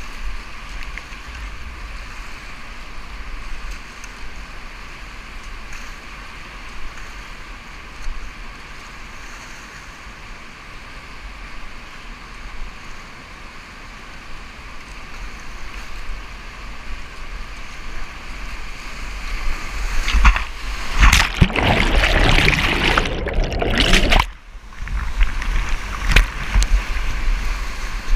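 Whitewater rushing around a kayak running a high-water river rapid, heard close from the boat. About 20 seconds in it turns to several seconds of much louder splashing as the boat drives through breaking waves.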